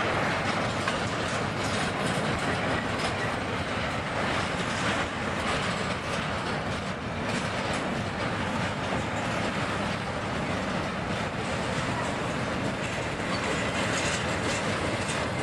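Double-stack intermodal freight train's well cars rolling past: a steady rush of wheel and rail noise with scattered clicks of wheels over the rail joints.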